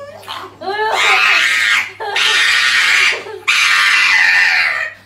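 A small brown curly-coated dog crying out: a short wavering howl, then three long, shrill, scream-like cries with brief breaks between them.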